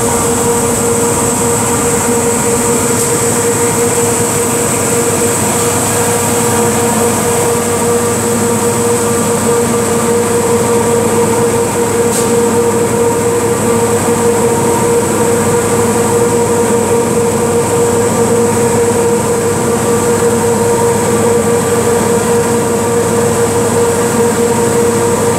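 Apex 2037M-DSS three-head deburring machine running steadily: its abrasive belt and two stations of rotating disc heads make a constant hum with a steady high whine.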